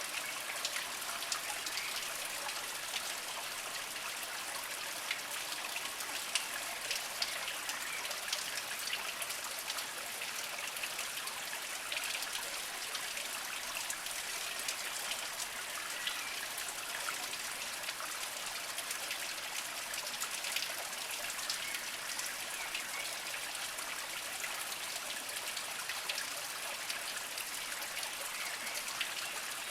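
Small spring water trickling and dribbling over mossy rocks, a steady gentle flow with frequent small drips and splashes.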